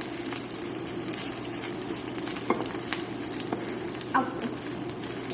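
Egg, Spam and rice frying in an oiled pan, with a steady sizzle while a utensil stirs and mixes them, and a few light clicks of the utensil against the pan about halfway through.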